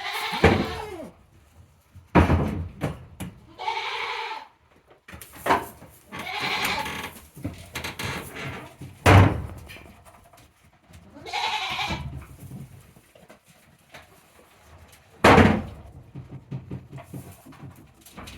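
Goats bleating several times in short, pitched calls, with three loud, sharp thumps between them, about 2, 9 and 15 seconds in.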